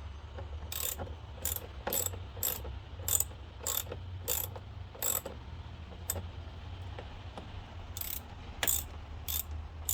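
A ratchet with a 6 mm socket tightening screws down: about a dozen sharp pawl clicks, roughly one every two-thirds of a second, with a pause about six seconds in before three more.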